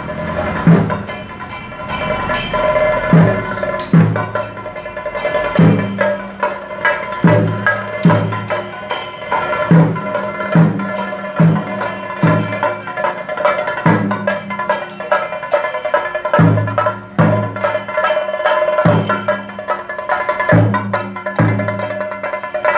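Festival band music: deep drum strokes at a steady pace, a little faster than one a second, with sharp percussion strikes and held melodic tones over them.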